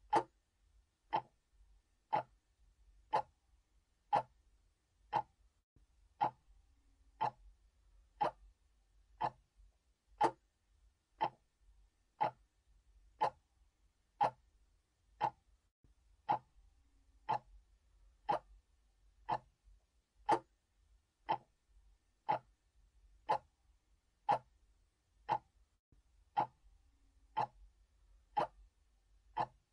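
Clock ticking steadily, about one sharp tick a second, evenly spaced.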